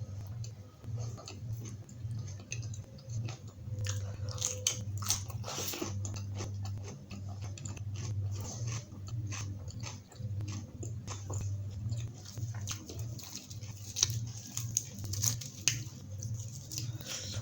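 A person chewing food close to the microphone, in a steady rhythm of low jaw strokes, with sharp wet mouth clicks and crunches throughout.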